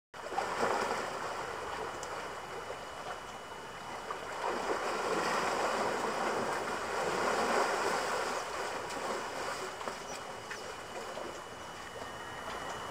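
Water sloshing and splashing as elephants wade and bathe in a pool: a steady rushing noise that swells about four seconds in and eases off near the end.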